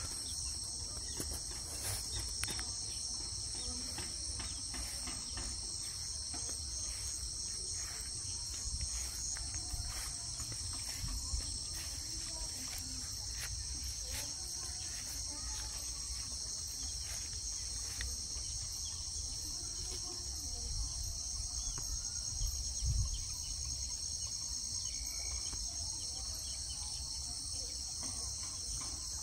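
A steady, high-pitched chorus of crickets and other insects, over a low rumble with a few faint knocks.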